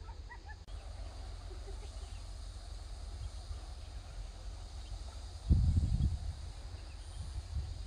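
Outdoor ambience: a steady low rumble of wind on the microphone, with a louder low burst about five and a half seconds in and a few faint bird chirps near the start.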